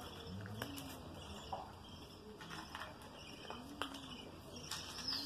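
Pigeon or dove cooing: a few low, arching coos spaced a second or more apart, with faint high chirps from caged budgerigars.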